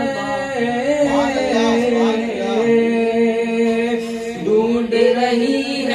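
Male voice singing a naat, drawing out long held notes between lines of lyric, with the melody stepping up in pitch about four seconds in.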